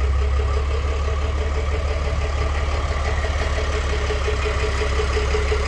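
2006 Ford LCF truck's 4.5-litre Power Stroke V6 diesel engine idling steadily.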